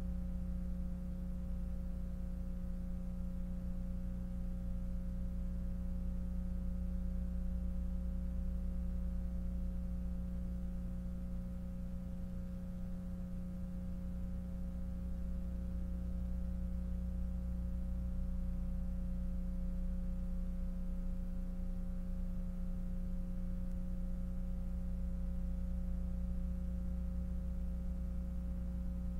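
Steady electrical hum of several fixed low and middle tones, unchanging throughout.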